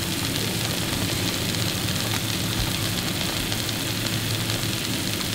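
Fish fillets and small potatoes sizzling steadily on an open electric contact grill, with a low steady hum underneath.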